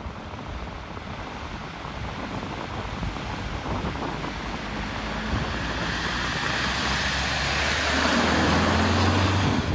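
A vehicle driving through a flooded ford: its engine and the rush of water it pushes grow steadily louder as it comes closer, loudest near the end.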